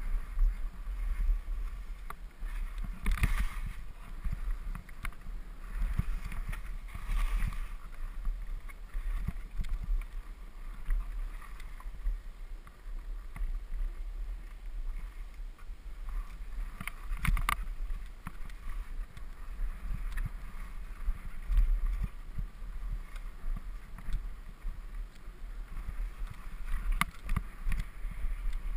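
Wind rushing over a helmet-mounted action camera's microphone during a fast ski run, a constant low rumble, with the skis hissing and scraping over the snow in louder swells about three, seven and seventeen seconds in.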